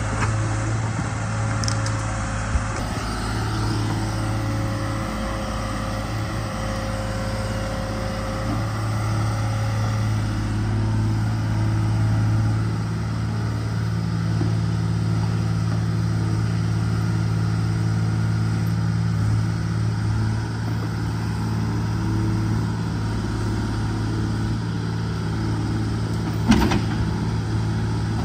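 The 125B excavator's diesel engine running steadily as the machine digs, with a sharp knock about two seconds in and another near the end.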